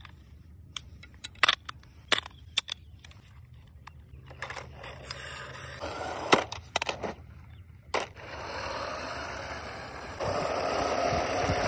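Sharp plastic clicks and taps from handling toy RC controllers, then a steady rushing whir from RC toy buses driving on asphalt, their small electric motors and plastic wheels rolling, growing louder in steps near the end.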